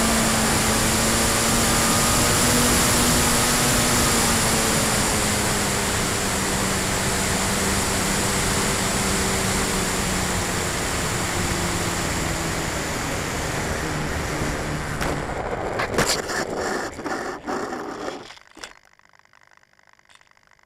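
Onboard sound of a Freewing P-51D radio-control warbird on approach: steady wind rush over the airframe with the electric motor's whine, its pitch easing down a few seconds in. About 16 seconds in it touches down on pavement with a sharp knock and a rattling roll-out, and the sound stops about 18 seconds in.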